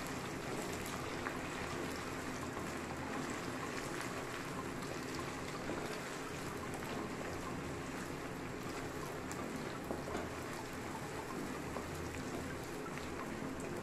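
Ginger-garlic paste and onions sizzling steadily in hot mustard oil in a kadai, a continuous even hiss with faint scattered crackles, as the paste fries until its raw smell is gone.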